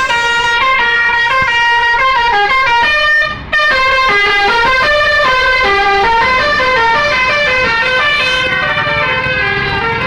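Telolet basuri multi-tone bus horn playing a tune, one held note after another, with a brief break about a third of the way through.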